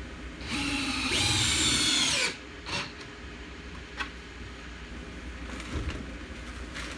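Power drill driving a screw into wood: the motor whines, speeds up to a higher pitch about a second in, and stops about two seconds in, followed by a few light knocks.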